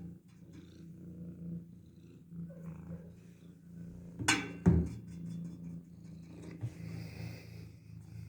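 Kitten purring steadily, with one brief louder noise about halfway through.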